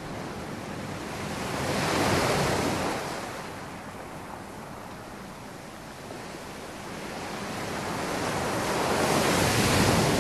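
A rushing, hiss-like noise that swells loud about two seconds in, eases off, then builds again near the end.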